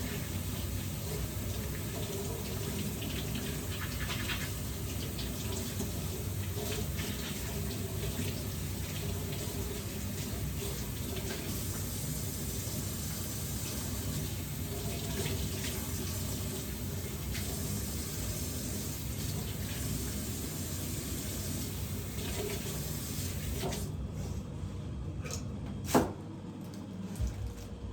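Water running steadily, stopping about 24 seconds in, followed by one sharp knock about two seconds later.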